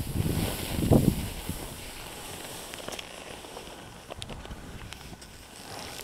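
Skis hissing through powder snow with wind on the microphone, loud for about the first second, then much quieter, with a few scattered light clicks.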